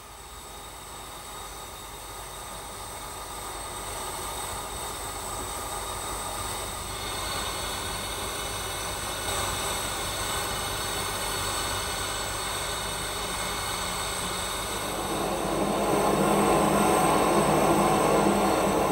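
Steam locomotive hissing steam in a steady rush that grows louder in steps, strongest in the last few seconds.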